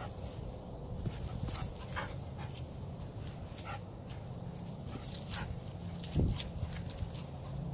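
Black Labrador–coonhound mix dog panting while playing on a leafy lawn, with scattered light rustles and clicks. One short low sound about six seconds in is the loudest moment.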